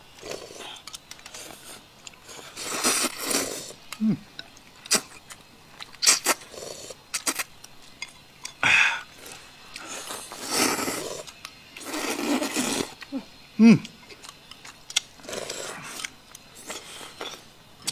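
People loudly slurping sweet-potato noodles and sipping corn porridge, in several long slurps about a second each. Between the slurps come sharp clicks of chopsticks against porcelain bowls and two short, low hums.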